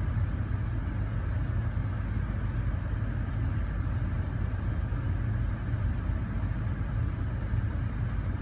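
Car engine idling steadily while running with a vacuum leak.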